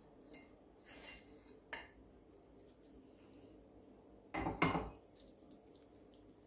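A spoon knocking and scraping against a pan and dish as the cooked quince-and-pekmez mixture is moved into another dish: a few light clinks, then a louder short clatter about four seconds in.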